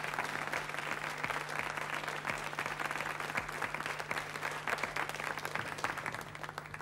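Studio audience applauding, the clapping thinning out near the end, with a steady low hum underneath.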